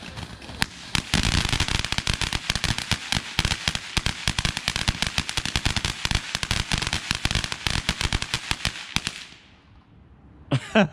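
Starlight ground fountain firework spraying sparks: a hiss, then rapid dense crackling from about a second in, which fades and dies out about nine seconds in as the fountain burns out.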